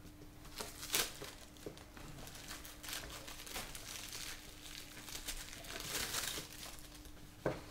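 A box of TB5 firecrackers being opened by hand: crinkling and rustling of the packaging, with a few sharp clicks, the sharpest about a second in and near the end.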